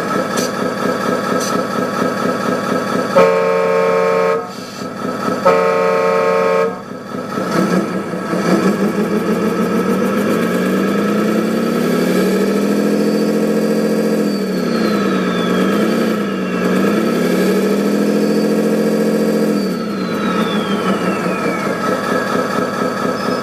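Electronic sound module of a 1/14 scale RC Scania R620 truck playing a diesel engine idle, with two horn blasts a few seconds in. The engine note then climbs and holds, dips and climbs again, and falls back to idle, with a high whine sliding down each time it drops.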